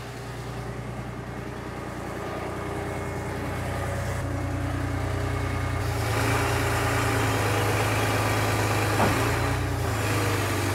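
The air-cooled Deutz six-cylinder diesel of a 1986 Liebherr R942HD excavator running steadily. It grows louder and steps up about six seconds in.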